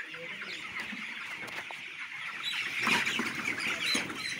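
A large flock of broiler chickens peeping and clucking together in a dense, continuous chorus that grows louder in the second half.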